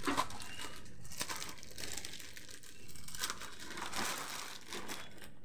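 Clear plastic packaging of new jeans crinkling and rustling as it is handled, with irregular crackles.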